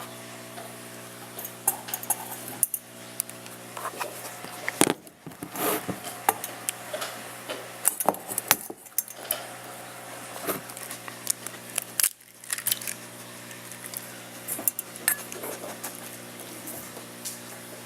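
Kitchen clatter: scattered sharp clinks and knocks of dishes and utensils, some close together, over a steady low hum.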